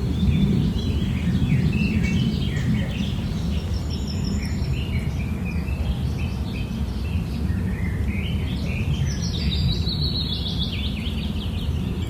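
Bird chirping in quick runs of short notes, busy in the first few seconds and again about two thirds of the way through, over a steady low rumble of background noise.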